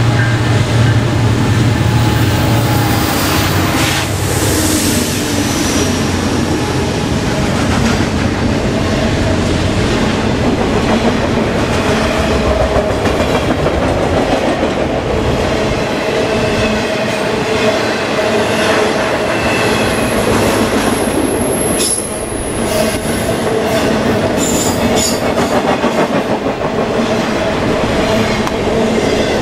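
Norfolk Southern intermodal freight train passing close by. The diesel locomotives' low engine hum is heard in the first few seconds, then the steady rumble and clatter of wheels on rail as the trailer-carrying flatcars roll past. Thin high wheel squeals come in about two-thirds of the way through.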